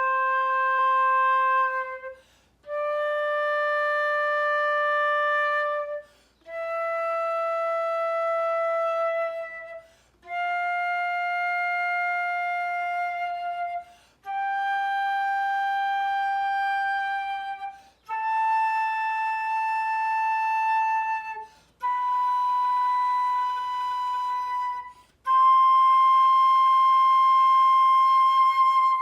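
Transverse flute playing an ascending C major scale in ordinary tone, without flutter-tonguing: eight long held notes climbing one octave from C to C, each held about three seconds with a short breath between.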